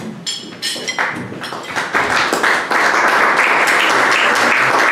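Audience applauding, the clapping building about a second in and becoming full and steady from about two seconds in.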